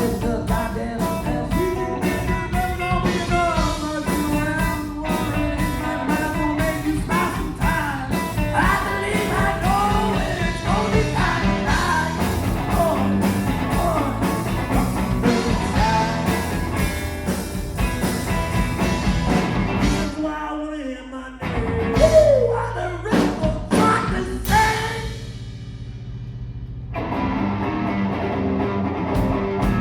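Live rock-and-roll jam by a guitar, bass and drums trio, with bending lead lines over a steady groove. About two-thirds through, the band drops out to a few loud sliding notes and a quieter stretch, then the full groove comes back in near the end.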